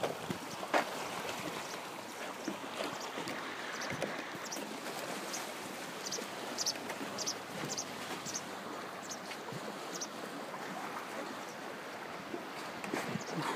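Choppy lake water lapping and splashing against a wooden pier in steady wind, an even wash of water noise with small splashes and clicks throughout.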